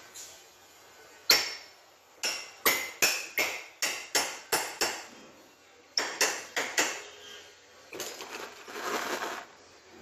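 Hammer blows on metal as an A/C compressor pulley held in a bench vise is struck: one hit, then a quick run of about nine ringing strikes at roughly three a second, then four more. Near the end comes a rougher scraping rattle of metal parts.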